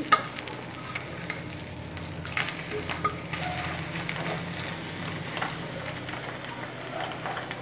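Omelette sizzling in a tri-ply stainless steel frypan, with a few scrapes and taps of a wooden spatula against the pan as the omelette is turned over and pressed down, mostly between two and three and a half seconds in. A steady low hum runs underneath.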